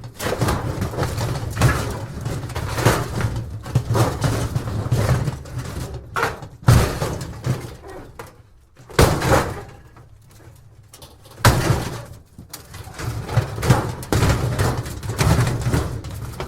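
Thin metal junk debris, tin and appliance scraps, being shaken and shifted: a dense rattling and clattering with several louder crashes and a brief quieter lull about two-thirds of the way through.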